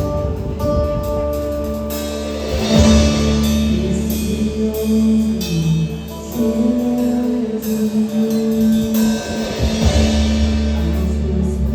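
Live church worship band playing an instrumental passage: sustained chords and bass with drum kit and cymbal strokes keeping a steady beat, and guitar.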